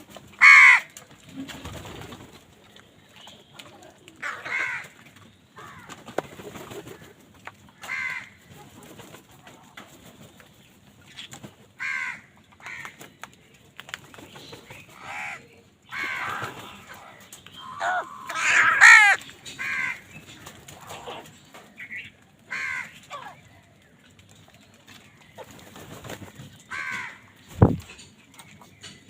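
Crows cawing, about a dozen harsh calls at irregular intervals, the loudest near the start and a cluster about two-thirds of the way through. A single sharp thud near the end.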